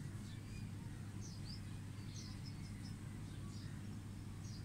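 Faint chirps of small birds, a few short calls scattered through, over a steady low hum.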